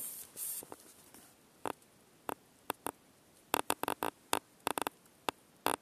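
A brief rustle, then scattered sharp crackles and clicks, bunched together from about three and a half to five seconds in: sage-twig and rolled-newspaper kindling catching fire in a wood stove.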